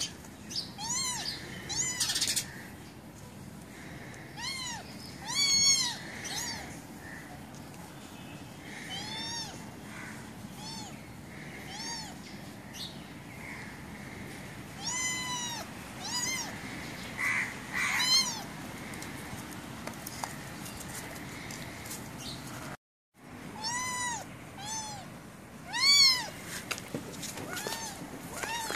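Kitten mewing over and over, short high cries that rise and fall in pitch, some much louder than others, in protest as a hand prods it.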